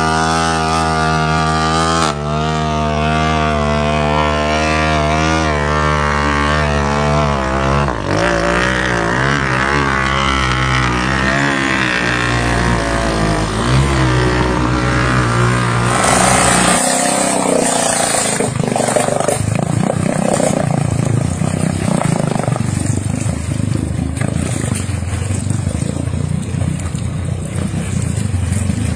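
Motorcycle engine running while the bike is ridden through river water deep enough to reach the engine. It holds a steady note at first, then from about eight seconds in the pitch wavers up and down as the revs change. About seventeen seconds in it cuts abruptly to a rougher, noisier engine-and-water sound as a black Honda motorcycle is worked through the water.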